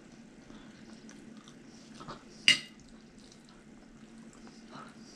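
Quiet chewing and small wet mouth sounds from eating enchiladas, over a low steady hum. About two and a half seconds in, a metal fork is set down on the ceramic plate with one sharp, briefly ringing clink, the loudest sound.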